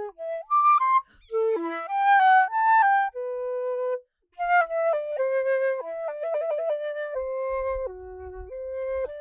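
A solo flute playing a slow melody of single clear notes, with a long held note, a short break about four seconds in, then a quick ornamented run of rapidly alternating notes before settling on held notes.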